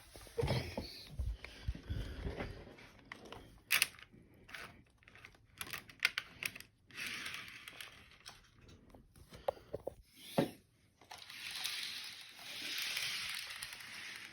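Handling noise: scattered clicks and knocks of small objects being picked up and set down, with longer stretches of rustling in the middle and toward the end.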